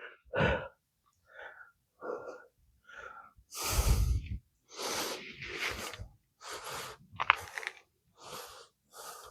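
A person breathing hard in short, forceful puffs, about one a second, from the strain of hammering at a stuck part in a transmission teardown.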